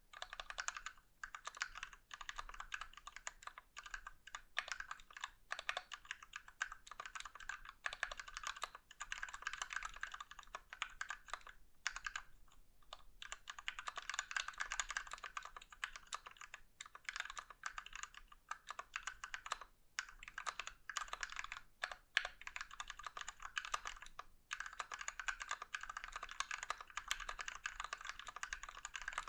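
Continuous fast typing on a mechanical keyboard with lubed Gateron Ink Black linear switches in a brass plate and XDA Canvas keycaps: a steady stream of key clacks, broken by short pauses a few times.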